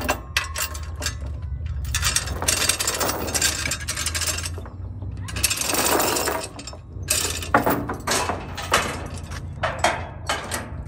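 Steel tie-down chain rattling and clinking as it is pulled through the tractor's hitch holes and across the trailer's wooden deck, in long runs of link-on-link rattle with short pauses and shorter bursts near the end.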